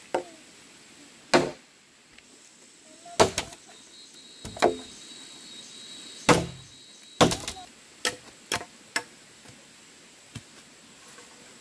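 A series of about ten sharp, irregularly spaced knocks, like blows struck by hand or with a tool, the loudest in the first seven seconds and the later ones lighter. A faint steady high tone runs through the middle.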